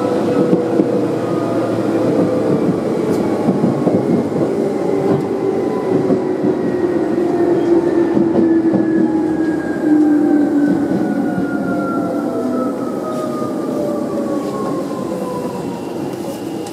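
Tokyu 8500 series electric train heard from inside the carriage as it brakes into a station: several motor whines fall slowly in pitch over a rumble of wheels on the rails, with the overall level easing near the end as it slows.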